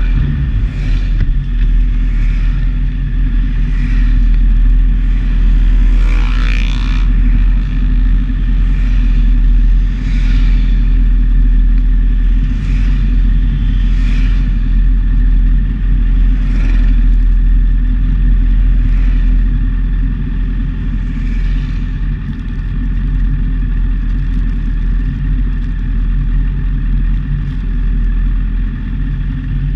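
Honda motorcycle with a full aftermarket exhaust idling steadily with a deep, even low note. A short rising-and-falling sound comes about six seconds in.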